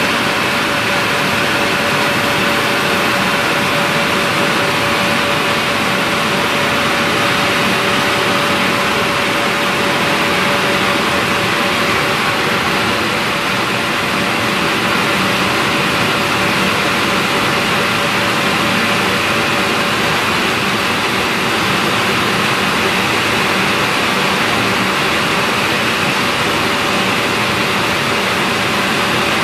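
Car wash machinery running steadily: a loud, even rushing noise with a constant whine, unchanging throughout.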